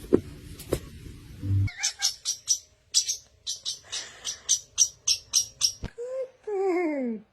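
Pet parrot chirping, a quick string of short high chirps, followed near the end by a lower call that falls in pitch.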